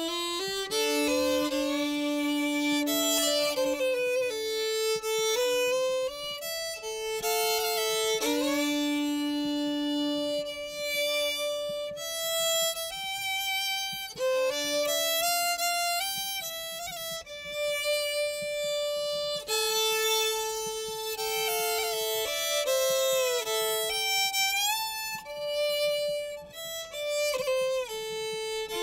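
Background music: a violin playing a slow melody, with long held notes and slides between them.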